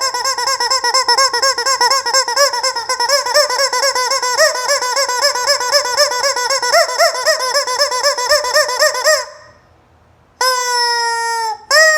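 Rubber squeaky chicken toy squeaking in a rapid run of short squeaks, several a second, for about nine seconds. After a brief silence it gives a long held squeal, then another just before the end.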